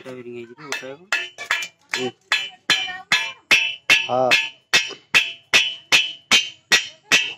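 Hammer striking a metal bearing hub in steady, evenly spaced blows, about two and a half a second, each with a short metallic ring.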